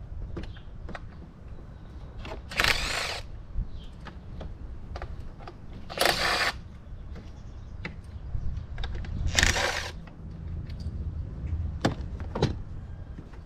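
A cordless power tool runs in three short bursts of about half a second each, loosening the bolts of the intake plenum on a Nissan Maxima's 3.5-litre V6 to reach the rear ignition coils. A couple of sharp clicks follow near the end.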